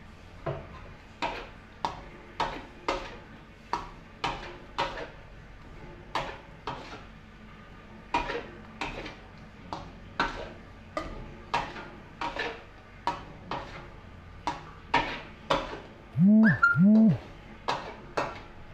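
Metal spatula scraping and knocking against a steel wok while stirring a thick chili sauce, roughly two strokes a second, each with a short metallic ring. Near the end, two short loud calls that rise and fall in pitch cut in.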